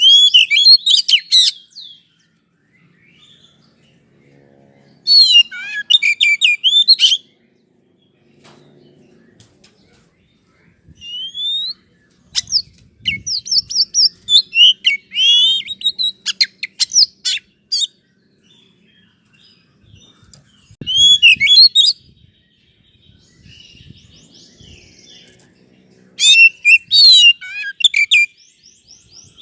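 Oriental magpie-robin (kacer) singing loud spells of rapid, varied, high whistled phrases, about five spells with short quiet gaps between. This is a lure song, played to provoke a caged kacer into singing and responding.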